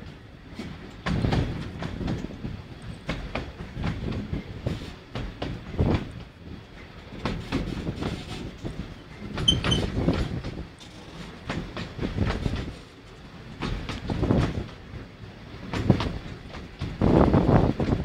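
Narrow-gauge train carriage running along the track, heard from an open window: a steady rattle and the clickety-clack of wheels over rail joints, swelling louder at irregular moments.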